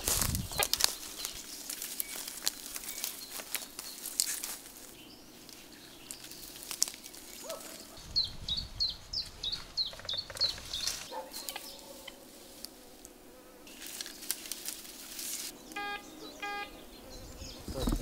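Rustling and crackling of someone moving through dry forest-floor litter and undergrowth while sweeping a metal detector, with a run of short high chirps around the middle. Near the end, the metal detector gives two short beeps, a target signal.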